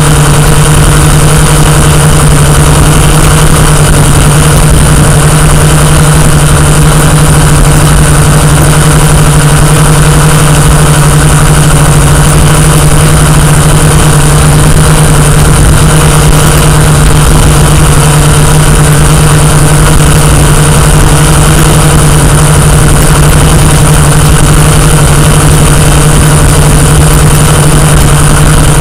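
Quadcopter drone's electric motors and propellers heard through its own onboard microphone: a loud, steady hum with one strong low tone over a hiss of propeller wash, unchanging while the drone flies.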